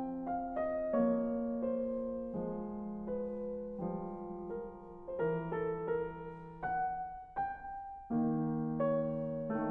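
Background piano music: a slow, gentle run of held notes and chords that change about once a second.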